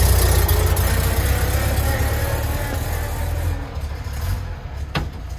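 Car engine idling with a strong low rumble that slowly eases off, and one short click near the end.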